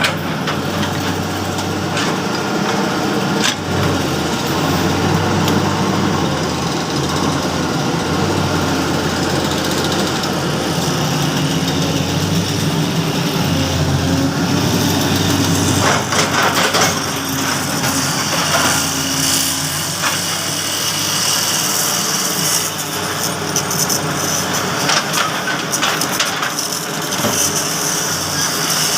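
Shantui hydraulic excavator's diesel engine running steadily, with a few sharp knocks along the way.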